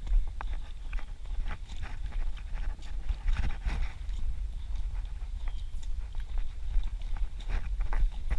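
Running footsteps on a dirt forest trail: a quick, even rhythm of footfalls, about two to three a second, over a constant low rumble on the microphone.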